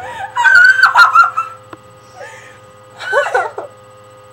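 A child's high-pitched squeal of about a second, with a shorter wavering squeal about three seconds in.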